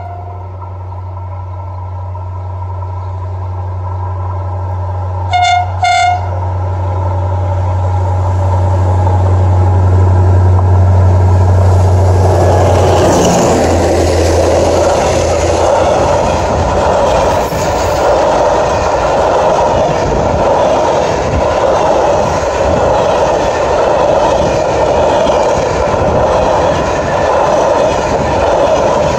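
TCDD DE 24000-class diesel-electric locomotives, with Pielstick 16PA4V185 V16 engines, approaching with a deep steady engine drone that grows louder. They give two short blasts on the air horn about five to six seconds in. The locomotives pass about twelve seconds in, and the train then rolls by with a continuous rumble and clickety-clack of wheels on rail.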